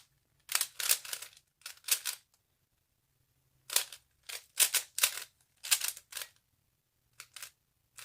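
3x3 speed cube being turned quickly, its plastic layers clicking and clacking in rapid flurries of turns separated by short pauses.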